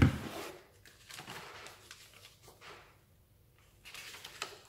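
A single knock at the start, then paper and cardboard packaging rustling and crinkling in bursts as a small cardboard box is rummaged through and folded paper sheets are pulled out.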